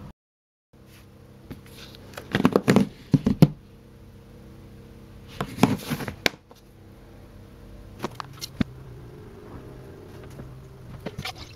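Hands handling a plastic fermenting bucket: clusters of sharp clicks and knocks about two, six, eight and eleven seconds in, over a low steady hum.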